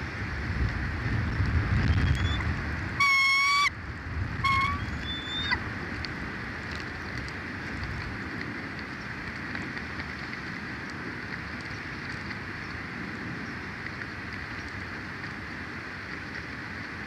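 A bird calling close to the microphone: one loud, clear held note about three seconds in, then a shorter one a second later and a few faint rising notes, over a low rumble that dies away as the calls begin.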